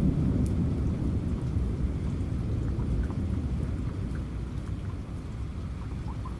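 Steady rain with a low rumble of distant thunder that slowly fades away, and scattered drops ticking over it.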